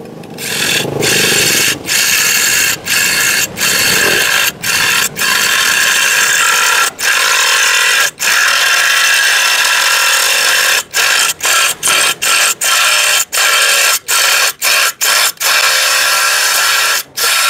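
Yupai 16.8 V cordless impact driver with a drill bit, boring through glazed ceramic tile. It runs loud and steady, with many brief stops along the way as the trigger is let off and squeezed again.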